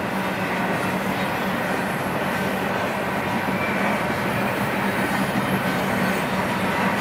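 Double-stack intermodal freight train's loaded well cars rolling past, steel wheels on rail making a steady rolling noise with a low hum underneath.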